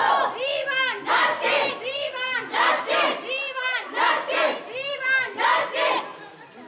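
A crowd of protesting students chanting a slogan in unison with high voices, in a rhythm that repeats about once a second. The chant stops about six seconds in.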